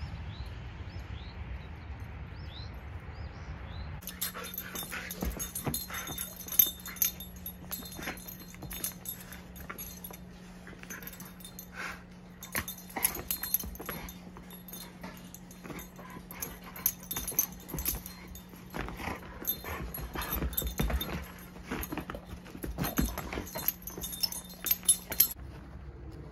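A shepherd-mix puppy playing rough with a person's hand: irregular scuffling, clicks and knocks, with short dog noises among them, over a steady low hum. The first few seconds hold only soft outdoor hiss with a few high chirps.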